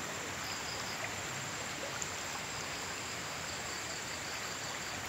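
Shallow river flowing: a steady rushing of water over riffles, with faint high chirps coming and going in the background.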